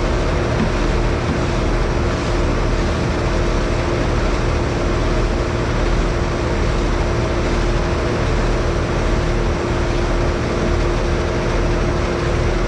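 Steady machinery drone with a constant hum running through it, unchanging throughout.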